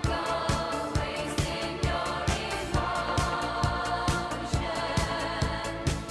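Background music with a steady beat of about two drum hits a second under sustained singing voices.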